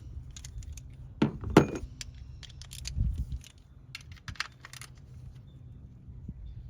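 Hand tools and metal parts clinking and tapping on the engine as bolts are snugged down: a few irregular sharp clinks, the loudest pair about a second in, and a dull thump about three seconds in.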